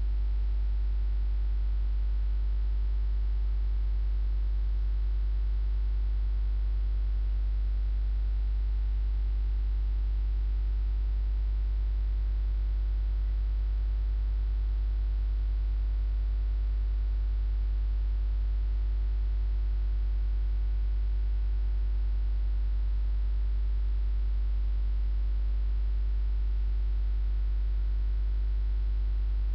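Steady low electrical mains hum, unchanging, with a faint hiss above it.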